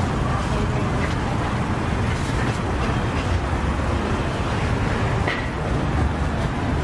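Steady background noise of a busy outdoor market: a constant low rumble with a few faint short sounds over it.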